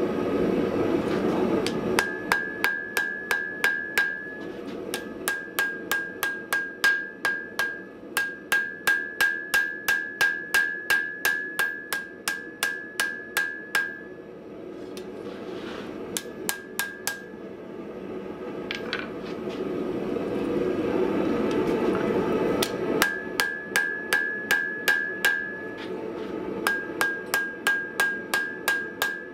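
Blacksmith's hand hammer forging a red-hot steel flat bar on an anvil, in several bouts of about three blows a second, each blow ringing with a high steady note from the anvil. In the pauses between bouts, a steady rushing noise.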